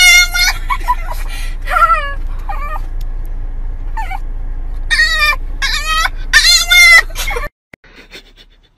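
A small fluffy white dog howling in a string of high, wavering calls, loudest at the start and in a run of long calls about five to seven seconds in, over a steady low car-cabin rumble. The sound cuts off abruptly near the end.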